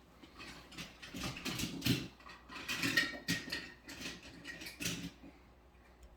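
A toy construction vehicle's mechanism clicking and rattling in irregular bursts, as if being worked by hand.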